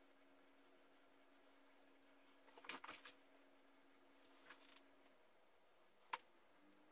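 Near silence with faint handling noises as a thin wooden roof piece is set and pressed onto the glued cab of a small wooden toy tractor: a short cluster of light clicks and rustles about three seconds in, a softer one near four and a half seconds, and a single sharp tap about six seconds in. A faint steady hum stops about five seconds in.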